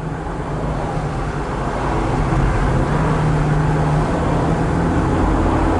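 BMW 335i's twin-turbo inline-six running under light throttle while cruising, with tyre and road noise, heard from inside the car. It gets a little louder over the first couple of seconds, then holds steady.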